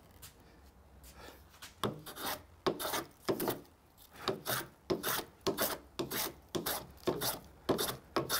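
Hand plane taking short, quick strokes across the wood of an assembled dovetail joint, shaving it down. The strokes come at about two to three a second, starting about two seconds in.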